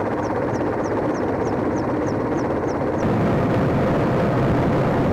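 Helicopter cabin noise: the dense, steady din of the rotor and engines. A faint high chirp repeats about three times a second for the first three seconds, and then the noise shifts slightly.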